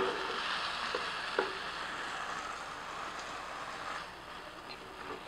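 Flour-coated vegan beef chunks sizzling as they fry in hot sesame oil in a stainless steel pan, stirred with a silicone spatula that gives a couple of light knocks against the pan early on. The sizzle eases a little near the end.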